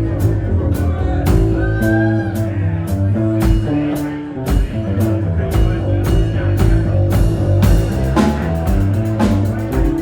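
Live rock band playing: electric guitar, bass, drum kit and keyboards, with a steady drum beat under bass and guitar lines.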